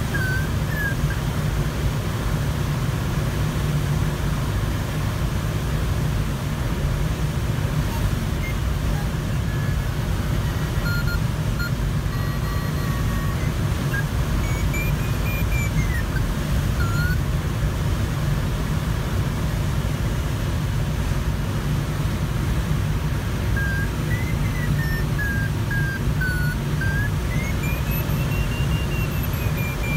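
Steady rush of airflow around an ultralight glider's cockpit canopy, with a low rumble. Over it, a variometer's audio tone comes and goes: a few short beeps, then tones gliding up and down in pitch as the climb rate changes.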